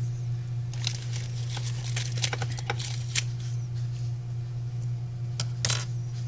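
Small crackles and clicks of a thin clear plastic piece being handled between the fingers, a quick cluster in the first few seconds and two more near the end, over a steady low hum.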